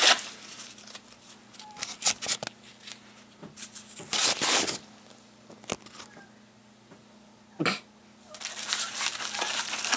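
Yellow padded paper mailer being torn open by hand: short irregular rips and rustles of paper, a longer tear about four seconds in, and steady crinkling near the end.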